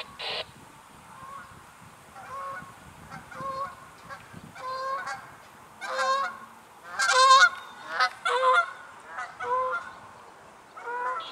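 A flock of Canada geese honking as they fly over: about a dozen separate honks, bunching up and loudest about seven seconds in.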